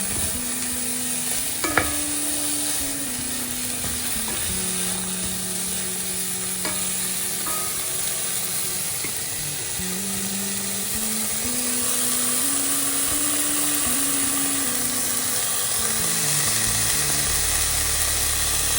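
Vegetables frying in a pan with a steady sizzle, stirred now and then, with a sharp utensil knock about two seconds in.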